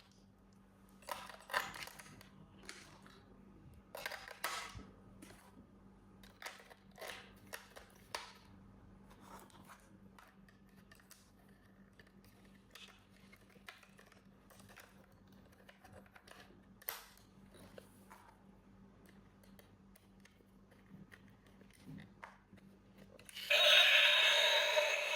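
Scattered small clicks, scrapes and rustles of a toy and its packaging being handled, with a faint steady hum underneath. Loud background music starts near the end.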